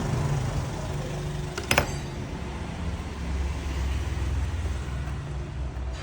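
Steady low background rumble, like road traffic, with one sharp click a little under two seconds in.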